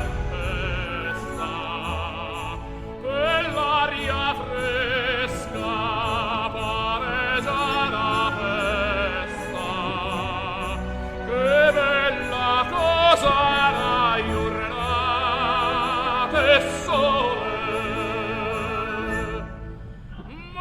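Operatic singing with strong vibrato over orchestral accompaniment, fading briefly near the end.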